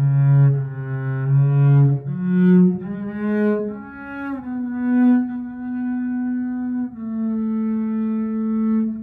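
Double bass played with a bow, a slow melody line climbing from low notes into a long held note from about halfway through, then a second held note a little lower near the end.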